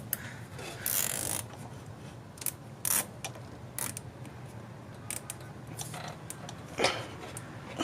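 Scattered sharp clicks, rattles and short ratcheting sounds of hand tools and car parts being handled during work on the engine bay, with a louder scrape about a second in.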